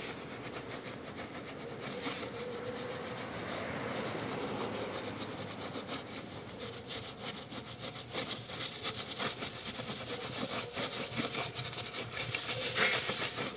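A detailing brush scrubbing a car's tailgate emblem lettering and the paint around it, wet with acid-rain remover. It makes a rapid, scratchy back-and-forth rubbing that grows louder near the end.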